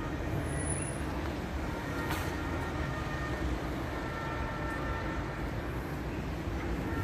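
Steady street traffic noise with a city bus running close by: an even low rumble throughout, with a few faint high tones over it.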